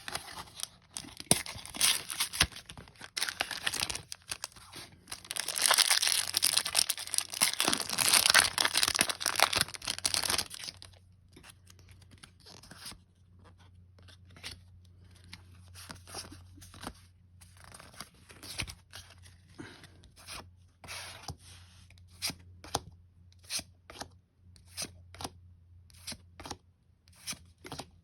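Foil wrapper of a Pokémon booster pack crinkling and tearing open, loudest and densest from about five to ten seconds in. Then, after about eleven seconds, the trading cards are slid and flicked one by one, making short, separate swishes and taps about once a second.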